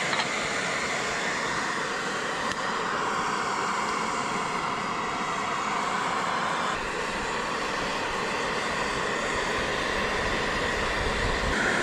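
Gas camp-stove burner running under a pot of brown-sugar-and-salt brine, a steady hissing roar that swells slightly near the end.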